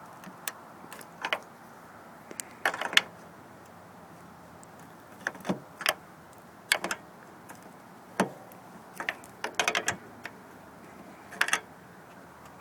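Scattered sharp clicks and short clattering bursts of hand tools and car trim parts being handled and fastened, several clusters a second or two apart, the busiest about three seconds in and near ten seconds.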